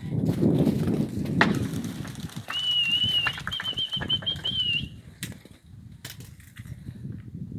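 Nikolaev pigeons' wings flapping, with a thin, high, wavering whistle starting about two and a half seconds in and lasting about two seconds with one short break.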